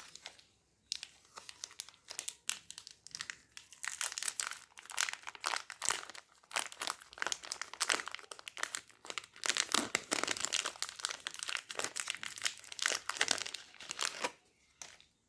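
Crinkling and tearing of a Cinnamon Toast Crunch Treats bar's wrapper as it is handled and opened, a dense crackle that goes on for most of the time and stops near the end.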